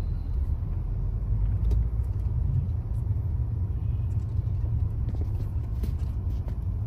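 Steady low rumble of a car's engine and road noise heard from inside the cabin as it creeps forward in a traffic jam.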